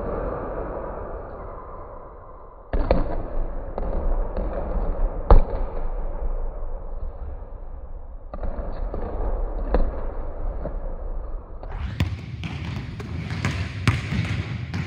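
Basketballs bouncing on a hardwood gym floor: irregular thuds that echo round the hall, the loudest about five seconds in, with more of them close together near the end.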